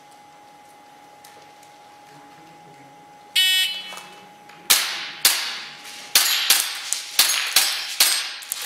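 An electronic shot timer beeps once about three seconds in. An airsoft pistol then fires a rapid string of shots, and the BBs clang on steel plate targets.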